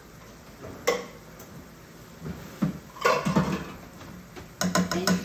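Canned corn being emptied into a stainless steel stockpot: the tin can clanks against the pot, with a sharp knock about a second in and several quick ringing knocks near the end as the can is tapped on the rim.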